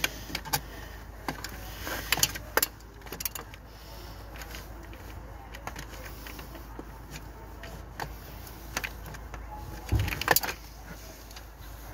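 Hand tools clinking and knocking on metal in a car engine bay as a socket ratchet on a long extension is worked: scattered sharp clicks, with a louder cluster about ten seconds in.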